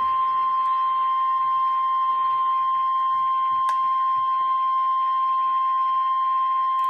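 NOAA Weather Radio's 1050 Hz warning alarm tone: one loud, steady, unbroken high tone that signals a warning is about to be broadcast, over faint radio hiss, with a single short click about halfway through.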